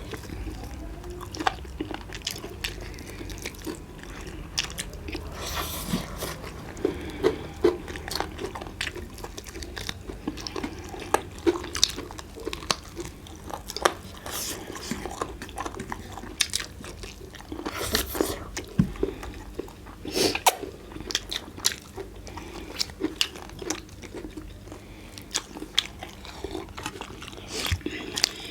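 A person eating roast chicken close to the microphone: irregular bites, chewing and crunching, with sharp clicks throughout.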